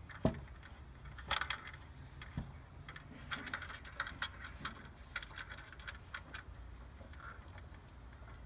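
Metal cable connectors clicking and rattling as they are pushed and screwed onto a unit's connector panel, in quick irregular clusters, with a single sharper knock just after the start.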